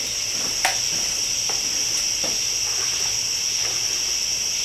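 Steady, high-pitched chorus of night insects, one unbroken shrill band, with a single sharp click about two-thirds of a second in.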